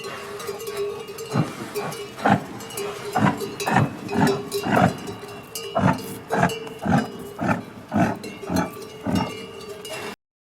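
Yak grunting repeatedly: about fifteen short, low grunts at uneven spacing, roughly one or two a second.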